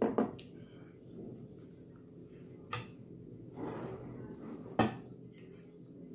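Cutlery and dishes knocking and clinking on a table during a meal: a few separate sharp clicks, a quick pair at the start and the loudest near the end, with a short soft scrape between.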